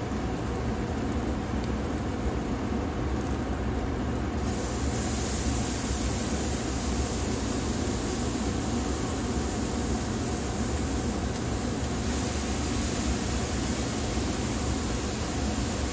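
Marinated flanken short ribs sizzling steadily on the hot grate of a kamado grill, over a low steady rumble. The sizzle gets brighter about four and a half seconds in, as another rib goes onto the grate.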